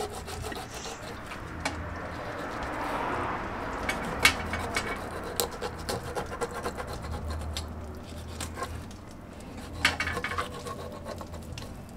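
Knife cutting through a large barracuda's flesh and backbone, with short scraping strokes and scattered clicks and cracks as the blade meets bone, several close together near the end.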